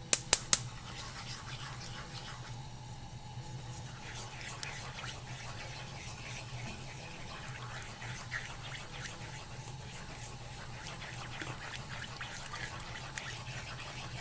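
Mushroom sauce simmering and bubbling in a pan: scattered small pops and ticks over a steady hum, with three quick sharp taps right at the start.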